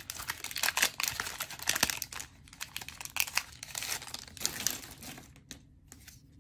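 A trading-card booster pack wrapper crinkling and tearing as it is opened by hand, a dense crackle that dies down about five seconds in.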